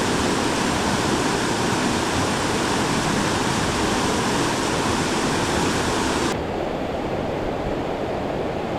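Mountain stream rushing, a steady wash of water noise with no other sound; the brighter hiss drops away about six seconds in.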